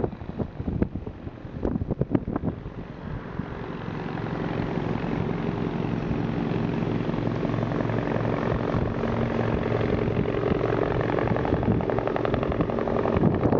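Wind buffeting the microphone, then about four seconds in a steady engine drone with a low, even hum comes in and grows louder, holding steady.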